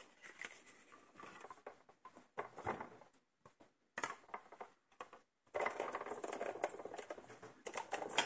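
Soft rustling and small taps of paper and card being handled on a work table, with a short quiet gap in the middle and a denser stretch of rustling near the end.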